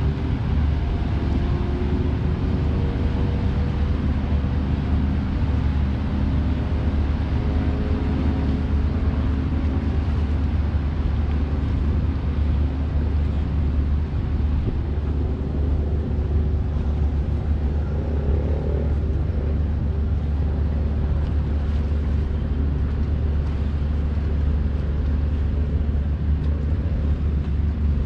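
Distant drone of a fast passenger ship's engines as it throttles up, the tone climbing slightly over the first ten seconds, over a steady deep rumble.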